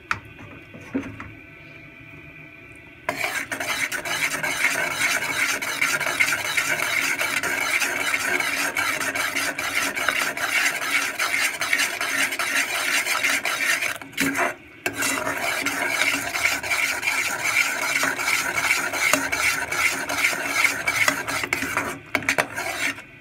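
Metal spoon stirring and scraping thick, bubbling jaggery syrup in an aluminium saucepan: a dense run of scrapes and clinks that starts about three seconds in, breaks off briefly near the middle, and stops just before the end.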